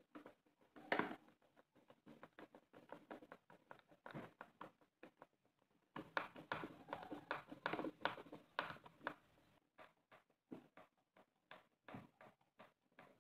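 Hand screwdriver driving small screws through a metal draw latch into a wooden box: faint, irregular clicking and scratching as the bit turns in the screw heads, with a short break about five seconds in.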